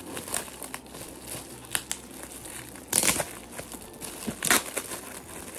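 Gift packaging crinkling as it is unwrapped, in irregular rustles; the loudest come about three seconds in and again at about four and a half seconds.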